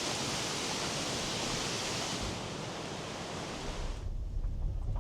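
Steady rush of running water from a small stream, which cuts off abruptly near the end. Low wind rumble on the microphone follows it.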